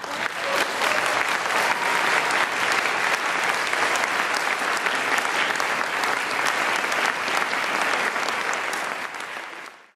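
Audience applauding, steady and even, fading out in the last second.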